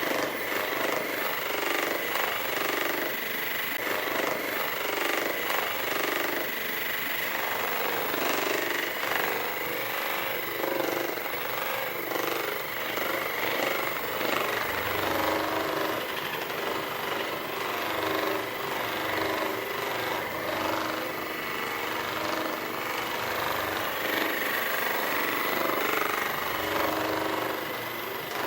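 Electric percussion massager hammering rapidly against the body, with a steady high whine.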